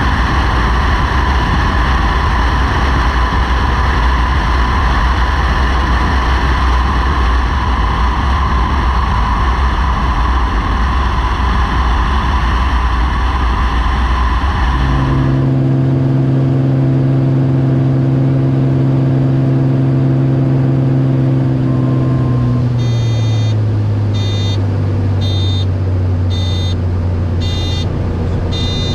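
Beechcraft Bonanza's engine and propeller drone in flight, first with heavy wind noise as heard from the wing, then, about halfway through, the steadier hum inside the cockpit, whose pitch drops slightly near the end. In the last few seconds an electronic beep repeats about once a second over the drone.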